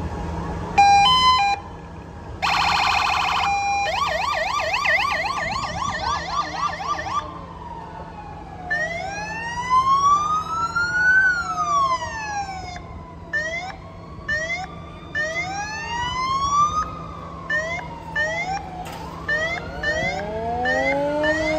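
Several fire truck sirens sounding at once and overlapping: short stepped tones, a rapid warble and fast yelps, then long rising-and-falling wails with short yelps between them. A lower siren winds up near the end.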